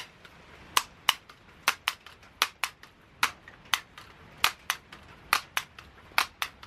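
Daisy PowerLine 880 multi-pump air rifle being pumped up: the forearm pump lever is swung open and shut, with a sharp click at each end of the stroke, about one stroke a second.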